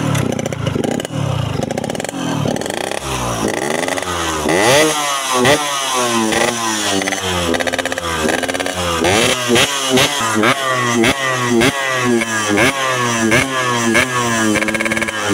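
Yamaha RX-King two-stroke single-cylinder engine running, then blipped repeatedly from about three seconds in, its pitch rising and falling about every two-thirds of a second. It breathes through a hot-iron-drilled ('bobok') air filter cover on a PWK 28 carburettor, a modification meant to give the intake a growling note.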